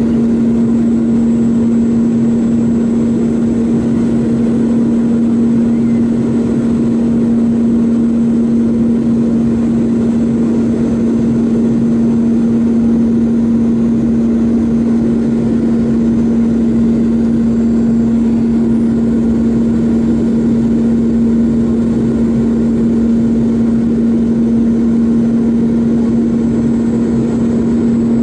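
Boeing 717 cabin noise beside its rear-mounted Rolls-Royce BR715 turbofan during descent: a steady engine drone with one strong, constant low hum.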